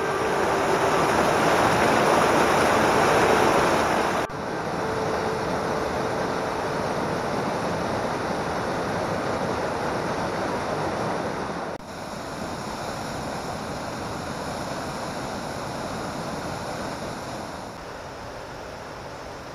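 Mountain torrent rushing over rock cascades, a steady wash of water noise. The level drops suddenly twice, about four and twelve seconds in.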